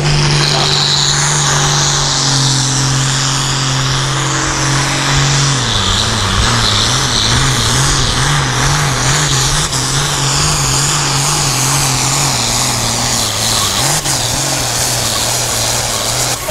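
Ford 8630 hot farm pulling tractor's diesel engine running hard under load as it drags a weight-transfer sled. The steady high engine note drops in pitch about six seconds in, then wavers up and down as the pull goes on.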